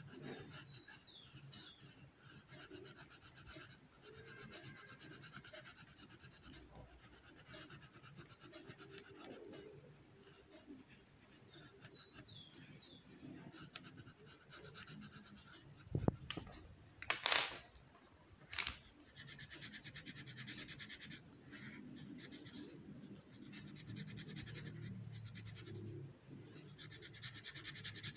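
Coloured pencil rubbing back and forth on paper in quick shading strokes, stopping and starting, with a few sharp knocks about two-thirds of the way through.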